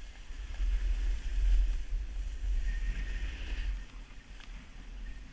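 Wind buffeting a body-worn camera's microphone as a snowboard slides over snow, with a steady scraping hiss. The rumble of the buffeting is loudest for the first few seconds, then eases.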